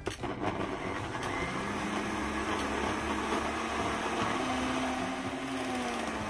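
ProBlend 5 countertop blender running, chopping pandan leaves in water into a pulp. A steady motor whine over a churning whir, rising slightly in pitch about two-thirds through and dipping near the end.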